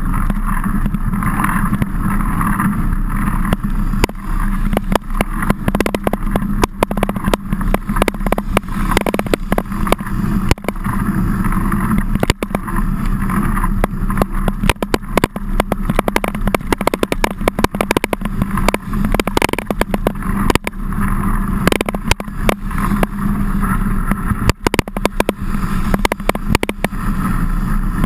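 Riding noise picked up by a mountain-bike-mounted action camera in heavy rain: a steady rumble of wind and tyres on the microphone, with frequent knocks and rattles as the bike jolts over rough ground.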